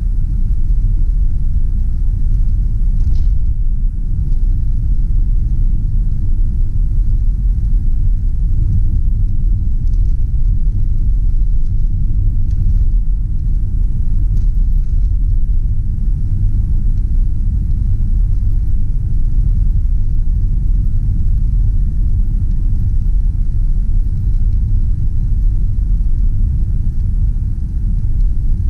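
1995 Ford Taurus driving along: a steady low rumble of engine and road noise.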